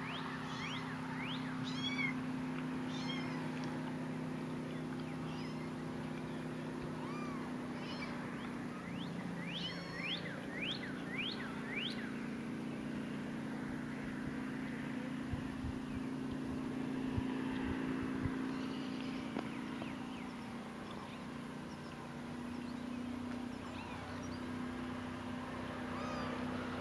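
Kittens mewing: short, high-pitched cries, many in the first half and fewer later, over a steady low hum.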